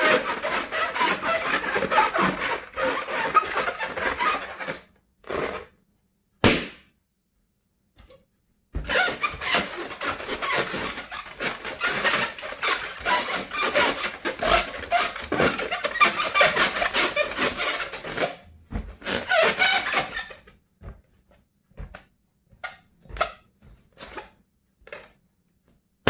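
Rubber balloon being handled, the latex rubbing and squeaking in two long stretches, with one sharp snap about six seconds in and scattered small squeaks near the end.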